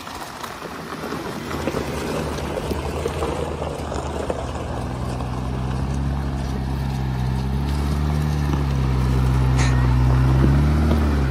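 Jeep Wrangler climbing a rough dirt trail. A rough rumble of tyres and gravel comes first, then the engine note builds steadily louder under load, its pitch shifting and dipping near the end.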